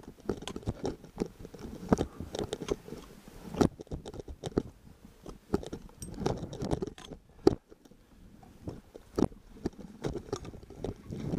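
A climber moving through snow, making irregular crunches and scrapes as boots, a gloved hand and an ice axe push into it close to the microphone. One sharper knock stands out about two-thirds of the way through.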